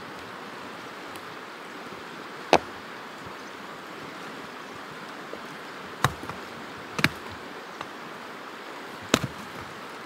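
An axe splitting firewood: four sharp knocking strikes a few seconds apart, some followed by a quick second knock. Under them runs the steady rush of a mountain river.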